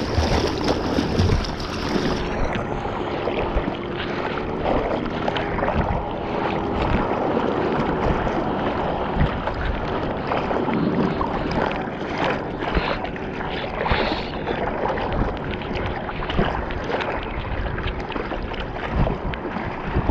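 Sea water splashing and sloshing around the nose of a bodyboard as the rider paddles hard, arm strokes dipping in again and again, heard close up at the waterline.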